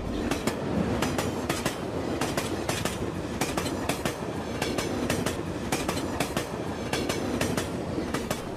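Recorded train sound effect for a stage mime: a train running on the rails, a steady rumble with rapid, irregular clickety-clack of wheels over the rail joints. It starts abruptly, cutting in after a steady electronic beep.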